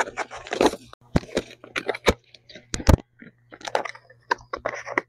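Hands opening a cardboard product box: cardboard crackling and scraping in quick irregular clicks as the flap is opened and a foam tray is slid out, with one sharper knock a little before three seconds in.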